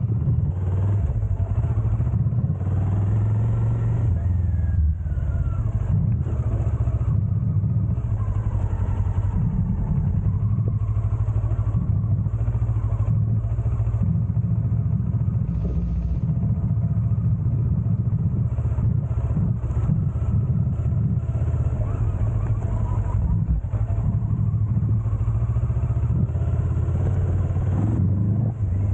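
Adventure motorcycle under way on a dirt track, its engine running at a steady pace, with heavy wind rumble on the bike-mounted camera's microphone.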